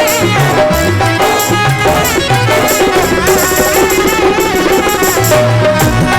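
Instrumental interlude of a Rajasthani folk bhajan: a melody instrument playing over a steady hand-drum rhythm.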